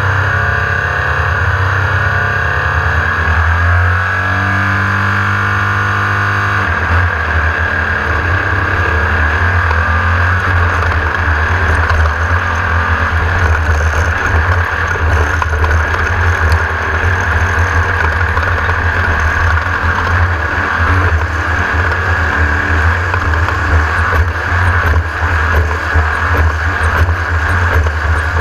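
Engine of a Class 1600 off-road race buggy, an air-cooled VW 1600, running hard. Its note holds fairly steady for about the first six seconds, then rises and falls quickly with the throttle as the car is driven flat out.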